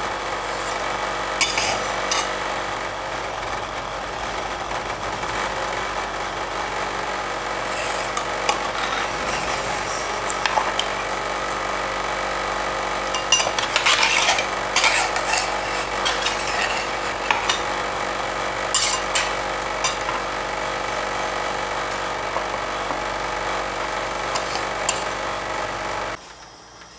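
Ice cream roll machine's refrigeration unit humming steadily under the cold plate, with metal spatulas scraping and clinking on the frozen steel plate several times. The hum cuts off suddenly near the end.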